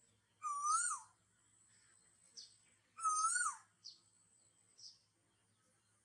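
A bird calling twice, a second and a half to two seconds apart: each a clear whistled note, about half a second long, that rises a little and then drops. Shorter, fainter, higher chirps fall between the calls.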